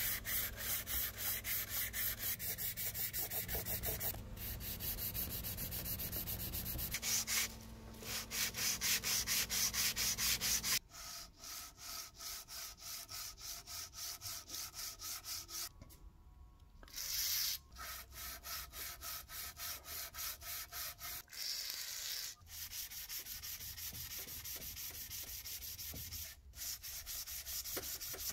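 Steel jaw of a Bahco adjustable wrench being hand-sanded with abrasive paper in steady back-and-forth strokes, about two to three a second. About eleven seconds in the sound turns quieter, as the jaw is rubbed flat on sheets of abrasive paper laid on the bench.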